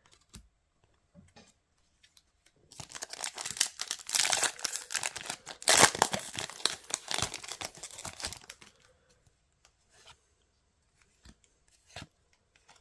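Trading card booster pack being torn open and its wrapper crinkled: a crackly rustling stretch of about six seconds, starting a few seconds in. A few faint clicks follow near the end.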